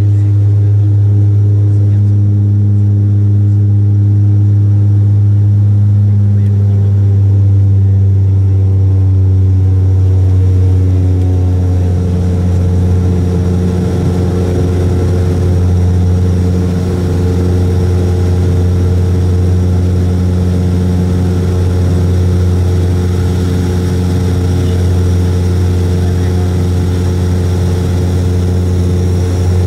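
Bombardier Dash 8 Q400 turboprop engine and six-bladed propeller heard from inside the cabin in flight: a loud, steady, low propeller drone with a strong hum underneath. About ten seconds in, its pitch settles slightly lower and then holds.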